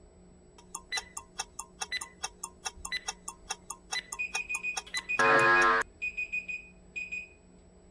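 Workout interval timer ticking rapidly, about five ticks a second, through the final countdown. Short beeps follow, then about five seconds in a loud buzzer sounds for just over half a second to mark the end of the set, and a few short beeps come after it.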